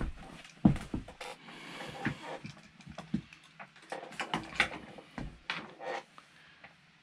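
Irregular small clicks, taps and soft knocks, some with a dull thud, coming at uneven intervals and falling away near the end.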